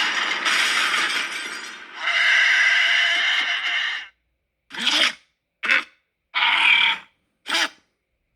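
Cartoon creature vocal sound effects for the dinosaur-like monster Rampardos: two long pitched calls one after the other, then four short calls with gaps of silence between them.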